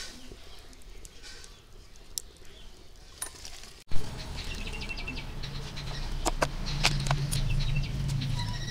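Birds chirping with light clicks of dried prawns being washed by hand in a plastic bowl of water. About four seconds in there is a sharp click, and after it a steady low hum runs underneath.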